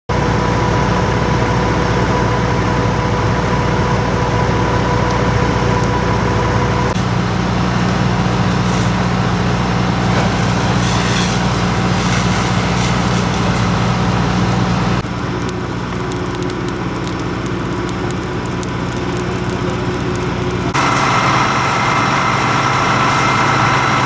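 A fire tanker truck's engine running steadily. The sound shifts abruptly three times: it is a little quieter for a stretch after the middle, and brighter with a higher whine near the end.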